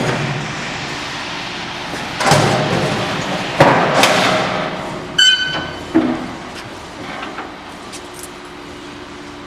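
Heavy metal knocks and bangs from a steel vertical baler being handled, with one clang that rings for a moment about five seconds in. A steady hum fades at the start and a fainter one remains near the end.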